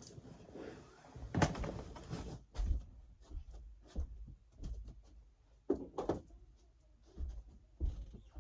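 Scattered knocks, low thuds and rustles of someone rummaging through and handling things, with a few louder bumps about a second and a half in, near the middle and near the end.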